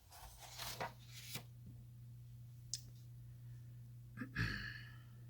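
Sheets of printed paper being handled and turned over, rustling and sliding against each other, with a sharp click a little before three seconds in and a brief louder rustle near the end. A low steady hum runs underneath.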